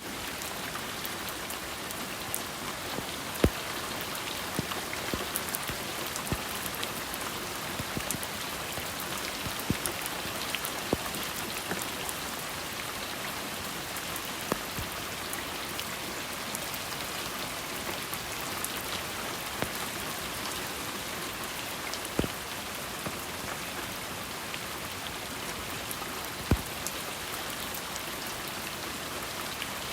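Steady rain falling: an even hiss with scattered sharp taps of single drops landing close by, a few of them louder than the rest.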